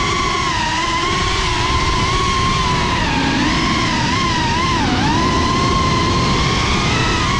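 FPV quadcopter's motors and propellers whining in flight, the pitch wavering up and down with the throttle and dipping sharply about five seconds in, over a steady low rushing noise.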